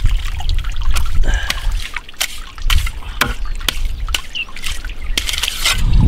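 Steel spade digging into wet mud at the water's edge: irregular sharp scrapes and wet slaps, with water sloshing and a steady low rumble underneath.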